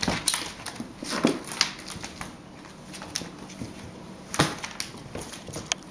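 A pet playing with a bird toy: irregular taps, clicks and rustles, with a few louder knocks about a second in and past the middle.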